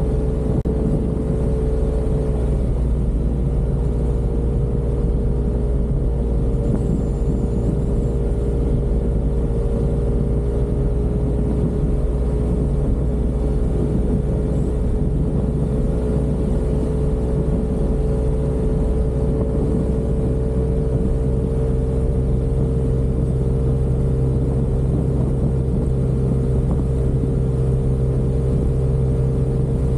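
Yamaha Aerox 155 scooter's single-cylinder four-stroke engine running at a steady cruise, with a low rumble of road and wind noise. The engine note dips slightly a couple of seconds in and then holds steady.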